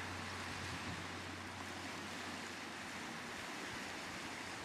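Steady wash of surf breaking on a rocky shore.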